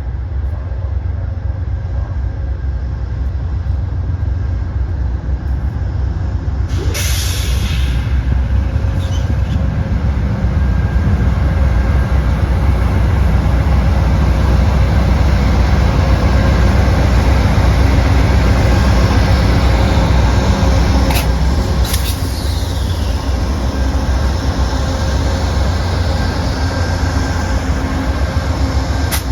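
Amtrak GE P42DC diesel-electric locomotives running, a heavy steady low rumble. A short hiss comes about seven seconds in, and two brief sharp sounds around twenty-one and twenty-two seconds.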